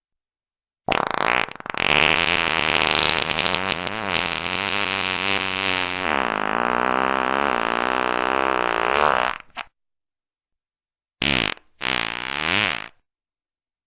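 Fart sound effects: one long, drawn-out fart lasting about nine seconds whose pitch wavers up and down, followed after a pause by two short farts in quick succession.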